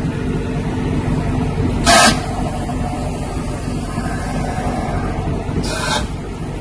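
Egg tray machine running: its motor and worm-gear reducer driving the tray conveyor give a steady low hum. A short, loud burst of noise comes about two seconds in, and a weaker one near the end.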